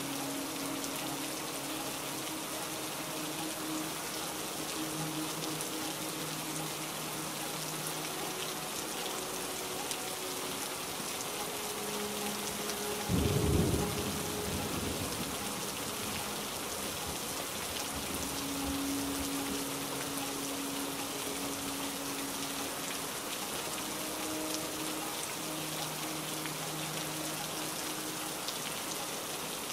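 Steady heavy rain falling, with a single loud, low rumble of thunder about halfway through that fades over a few seconds. Soft held low notes of background music sound underneath.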